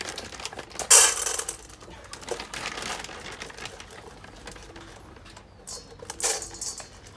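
Dry dog kibble poured from a plastic bag into a stainless steel bowl, rattling loudly about a second in, followed by crackly rustling of the plastic bag and another short rattle of rustling near the end.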